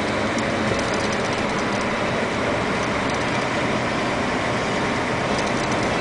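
Vehicle engine running steadily with tyre and road noise, heard from inside the cab while driving.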